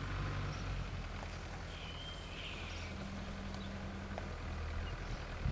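Steady low hum of an engine running at a distance, with a short bird chirp about two seconds in.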